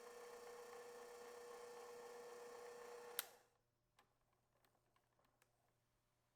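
A small electric kitchen-appliance motor humming steadily, switched off with a sharp click about three seconds in and winding down at once. A few faint light clicks follow.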